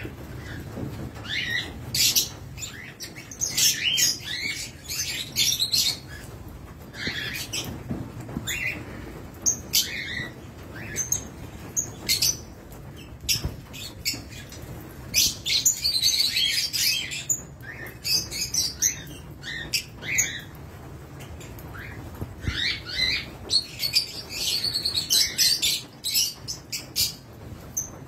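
A flock of lovebirds, mostly Fischer's lovebirds, chattering with many high-pitched, overlapping chirps that come in busy spells with short lulls between.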